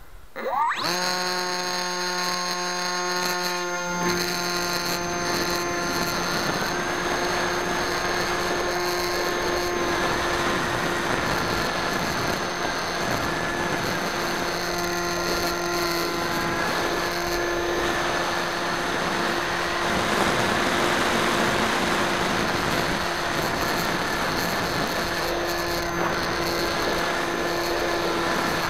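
Electric motor and propeller of a Bixler 2 RC foam plane spinning up sharply about half a second in, then running at a steady whine. From about four seconds in, wind rushes over the airframe as the plane flies.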